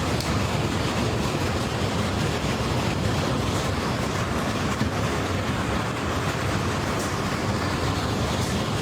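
Hailstorm noise: a steady, dense roar of hail and rain pounding down without let-up.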